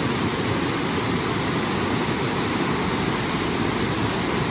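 Steady rush of falling water, an even noise with no breaks.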